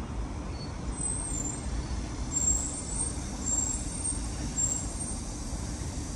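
Steady low rumble of road traffic, with a few brief, faint high-pitched tones in the middle.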